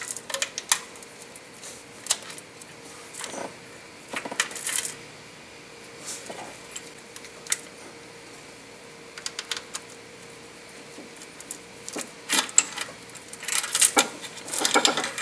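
Timing chains and sprockets of a Dodge 4.7 L engine clinking and rattling as they are worked off the engine by hand, in scattered metallic clicks with short rattling clusters, the busiest near the end.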